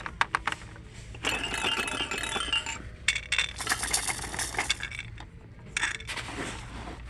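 Plastic bead-rattle toy on a Baby Einstein activity jumper being shaken and handled: a few sharp plastic clicks at first, then the beads rattle in two spells of a second or more each and once more briefly near the end. The jumper's electronic sounds are not working.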